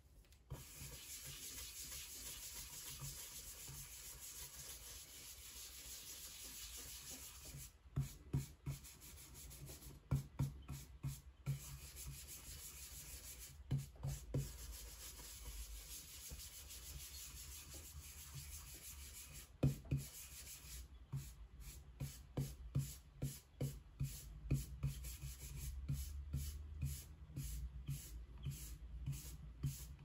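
Round printing brush scrubbing red pigment across a carved woodblock: a steady rubbing at first, then quicker strokes with sharp little taps from about eight seconds in, coming thick and fast in the last third.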